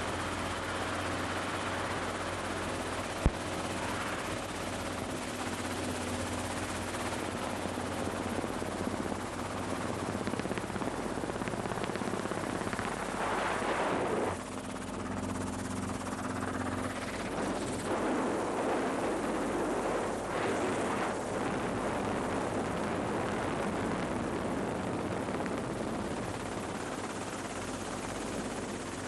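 Light helicopter's engine and rotor running steadily, heard from inside the cabin in low flight. A single sharp click comes about three seconds in, and louder rushes of noise come through the middle.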